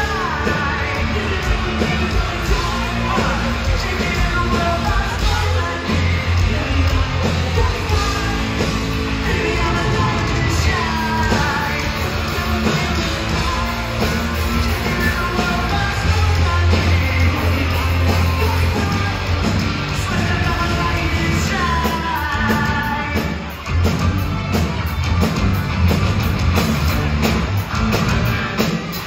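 Live rock band playing a song: a singer's vocals over electric guitars, bass and drums through the PA, loud and continuous.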